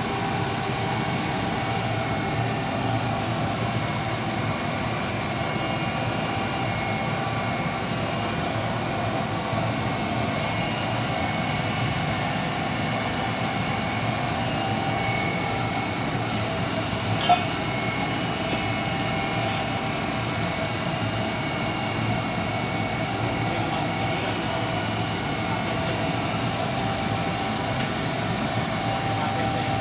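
Miura EH 1000 FH steam boiler running: a steady machine drone with a few constant tones over it, and one sharp click about halfway through.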